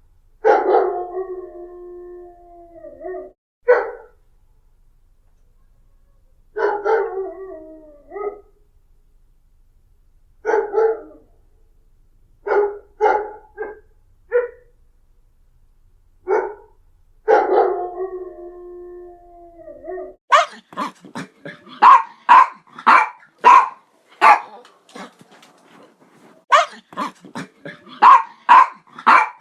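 Dog barking: scattered single and double barks, some drawn out into a long held, wavering howl-like call, then from about two-thirds of the way in a fast run of sharp barks about two a second.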